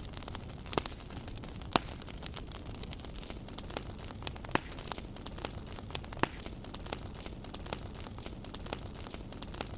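Wood campfire crackling, with frequent small snaps and a few sharper pops, over a steady low rumble.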